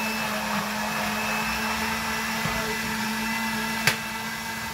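Countertop blender motor running steadily, puréeing cooked beans with hot water, with a single sharp click about four seconds in.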